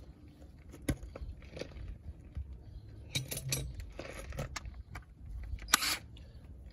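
Metal hand tools and parts clinking and scraping as they are handled, in irregular sharp clicks, with louder bursts about three seconds in and again near the end.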